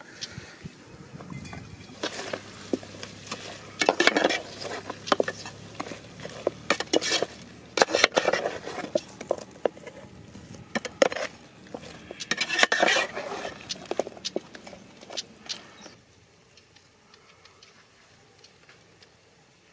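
A metal utensil clinking and scraping against a cooking pot as food is stirred, in irregular bursts of clatter that stop a few seconds before the end.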